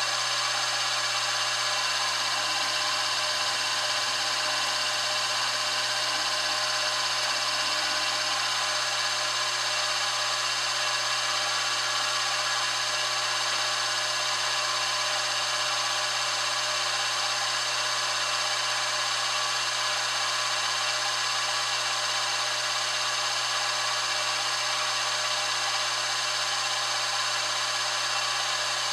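Grizzly G0704 milling machine's spindle running at a steady whine while a 1/8 inch drill bit feeds into aluminum.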